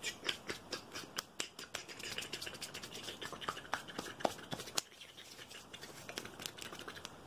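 Fingers tapping and scratching close to the microphone in a fast, irregular run of sharp clicks and scrapes, thinning out after about five seconds.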